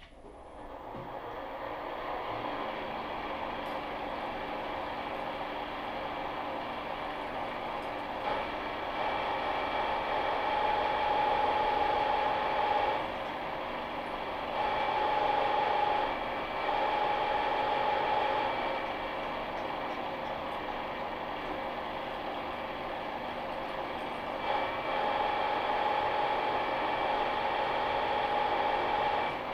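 Milling machine with an angle head spinning up, then running steadily while a drill bit is fed into the end of a forged steel truck tie rod. A high ringing tone comes and goes in four spells as the bit cuts.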